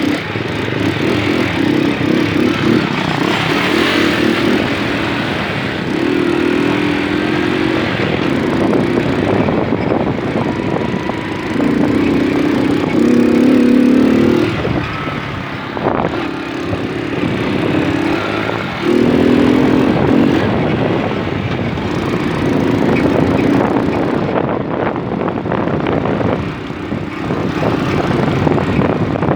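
Moped engine running while riding, its note rising and falling several times with the throttle over a steady rush of wind and road noise.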